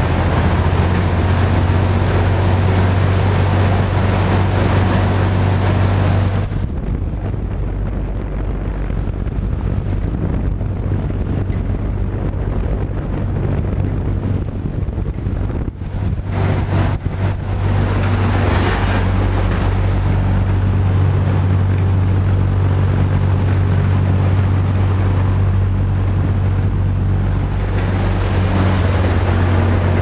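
Vintage AMC box fan running: a steady low motor hum under a loud rush of moving air. The air rush drops away about six seconds in and builds back up near the end.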